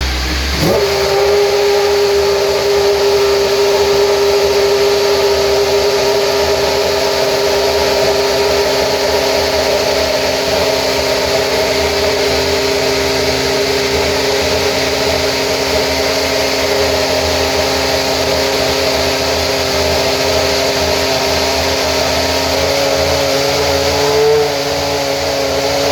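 Brawn GP 2009 Formula One car's 2.4-litre Mercedes V8 running on a warm-up. The pitch sweeps up in the first second, then the engine holds a steady high-revving note. Near the end the revs climb slightly.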